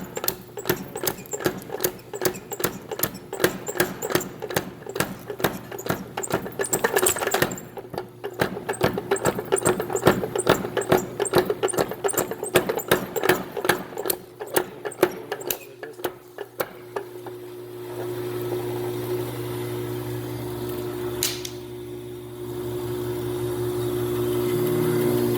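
Little Giant 50 lb mechanical power hammer running, its ram striking in a rapid, even run of several blows a second, with a brief break partway through. After about 17 seconds the blows stop and only the electric drive motor hums steadily, with one sharp click a few seconds later.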